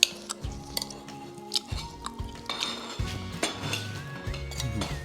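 Utensils clinking and scraping against plates and dishes during a meal, over background music with held notes.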